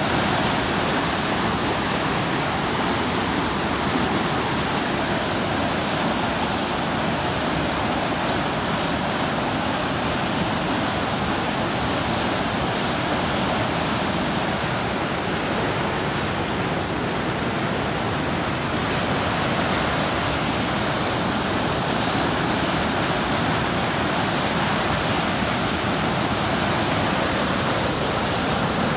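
Swollen, muddy river in flood rushing and churning in big standing waves: a loud, steady rushing noise.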